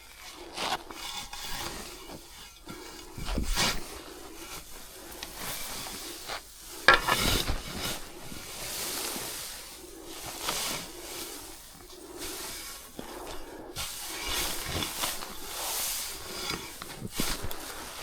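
Loose hay rustling and scraping as it is pulled and handled from a round bale, with irregular soft strokes and a sharper knock about seven seconds in.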